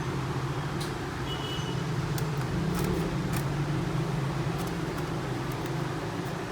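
Steady low hum, with a few faint light clicks and taps scattered through it, typical of the MacBook Air's aluminium bottom cover being handled and laid in place.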